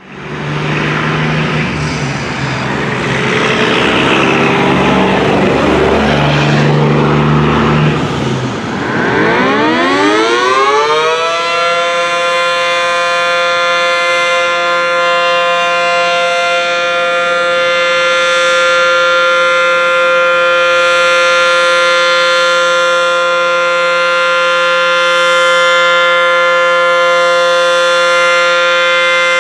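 Dual-toned ACA Banshee 115 outdoor warning siren winding up about nine seconds in, its pitch rising for a couple of seconds, then holding a steady two-tone alert chord. Before the wind-up there is a loud rushing noise.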